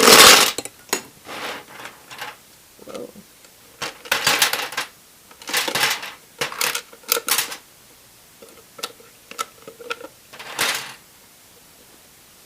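Small hard plastic Bionicle pieces clattering and clicking against each other as they are handled and dropped. The sound comes in several rattling bursts with single clicks between them, and the loudest burst is right at the start.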